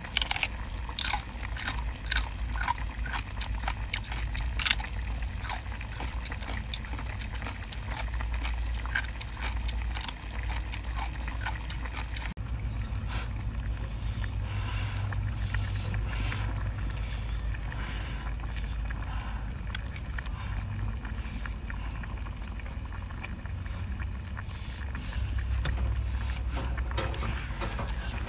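Close-miked eating: biting into and chewing cooked seafood, with many sharp wet clicks of chewing for the first twelve seconds or so, then softer, denser chewing, under a steady low rumble of wind on the microphone.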